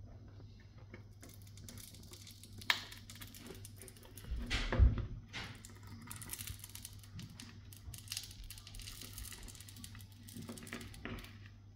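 Small clicks and scrapes of a metal pry tool worked around the frame of a sat-nav, separating its glued touch screen. There is a sharp click about two and a half seconds in and a louder thump near five seconds in.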